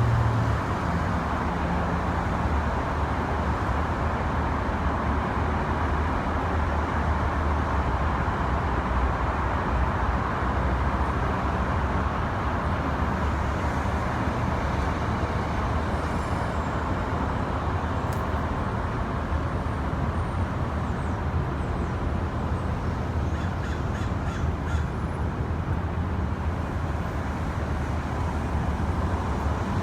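Fledgling crows cawing over a steady background hum of road traffic.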